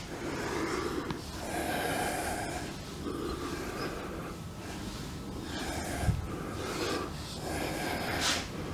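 A person breathing heavily in and out through the mouth, one breath about every second and a half. A single sharp click about six seconds in.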